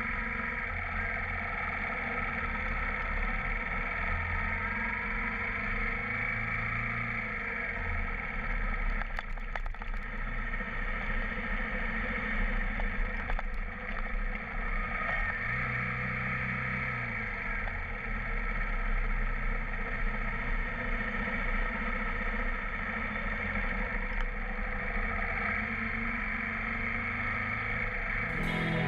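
Suzuki GZ250 single-cylinder motorcycle engine running steadily while riding on the road, with wind rushing over the handlebar-mounted camera. The engine note shifts a couple of times with the throttle.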